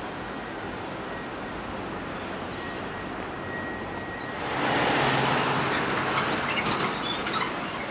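Street traffic noise, with a car passing close by about four seconds in, its tyre noise swelling loudly and then fading.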